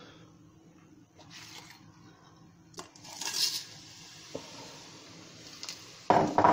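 Whole spices tipped from a small bowl into hot oil in an Instant Pot's stainless steel inner pot: a short rush of rattle and sizzle about three seconds in, then a faint steady sizzle. Light clinks follow, and near the end come two loud knocks of dishware against the metal pot.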